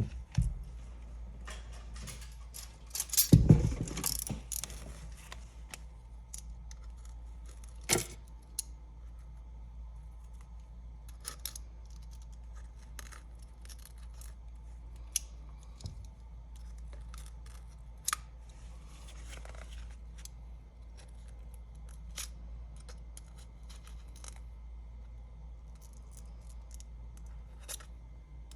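Scattered small clicks, ticks and scrapes of prying tools working along the edge of an iPad's glass digitizer to separate it, with a louder clatter of scraping and tapping about three to four and a half seconds in.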